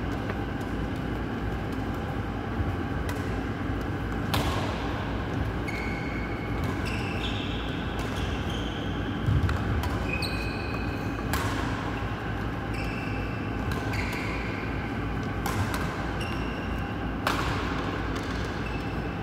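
Badminton multi-shuttle drill in an indoor hall: sharp racket-on-shuttlecock hits every few seconds, mixed with short high squeaks of shoes on the court floor, over a steady low hall hum.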